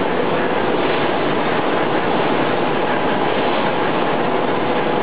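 PVC wire-coating extrusion line running: a steady, even mechanical noise with a faint steady hum through it.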